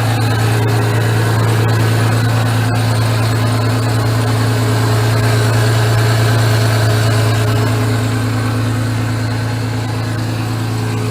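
1999 Isuzu Amigo's engine idling steadily.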